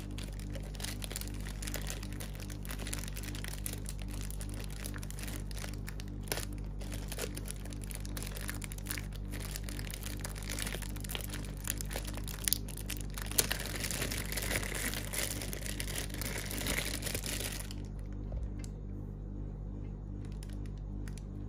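Clear plastic bag crinkling and rustling as it is worked off by hand, stopping suddenly near the end. A steady low hum, an air conditioner's, runs underneath.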